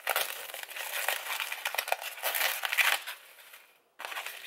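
Plastic cling wrap crinkling and rustling as it is peeled off a store tray of raw tuna. It dies away about three seconds in and starts again just before the end.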